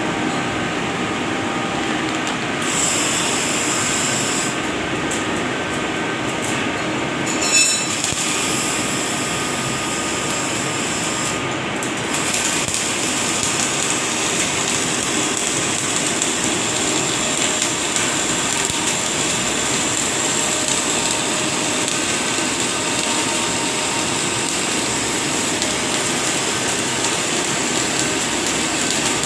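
Flux-core MIG welding arc running in the flat position: a steady hiss, with its high end dropping out a few times in the first twelve seconds.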